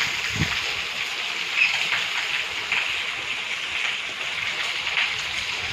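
Steady rain falling, an even hiss with scattered drop splatters and a brief low thump just under half a second in.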